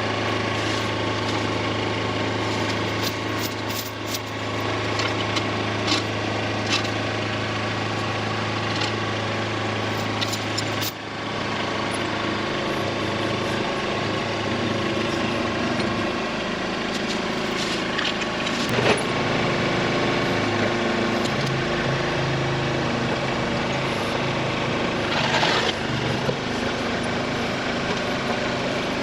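Kubota tractor's diesel engine running steadily while its BH77 backhoe works, with a few sharp clanks scattered through.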